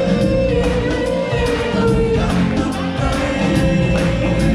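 Music from a stage-musical performance: singers, with group or choir voices, over backing music. One long note is held through the first couple of seconds.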